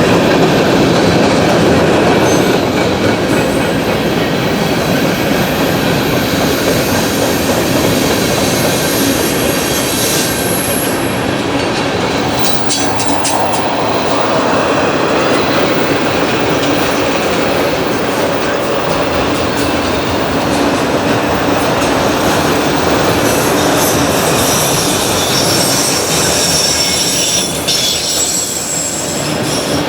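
Freight cars of a CSX manifest train rolling past, wheels clacking over the rail joints, with thin high wheel squeal now and then, notably in the second half.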